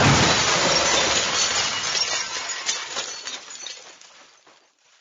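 Crash of shattering glass, dying away over about four seconds in a scatter of small clinks.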